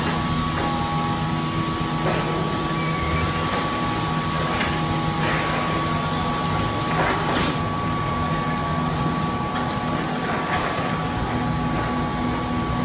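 Hydraulic wet-mix concrete kerbstone press running: a steady machine hum with several held tones, and a few short sharp noises, the clearest about seven seconds in.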